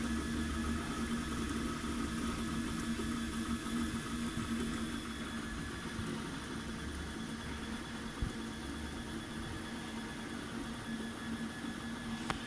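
MINGDA 3D printer running a print: a steady mechanical hum of its cooling fans and stepper motors, with a constant low tone and fainter higher tones. A single light knock a little past the middle.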